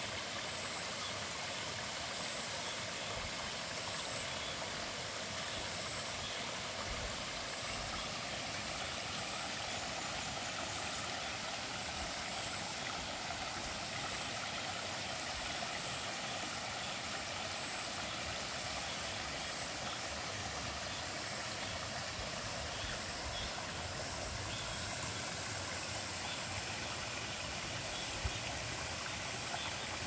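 A steady, unbroken rushing noise with no pitch, even from start to end, with one faint tick near the end.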